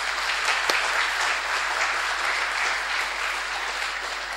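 Audience applauding at the end of a talk, a steady wash of clapping that eases off slightly near the end.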